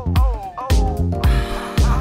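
Background music with a steady beat, about two beats a second, and short sliding melody notes over it.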